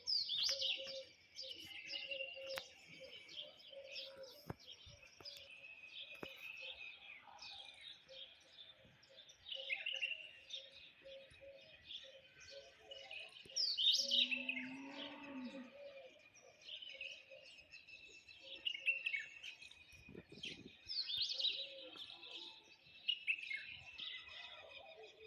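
Birds chirping and calling again and again, with a single low call lasting about a second and a half midway through.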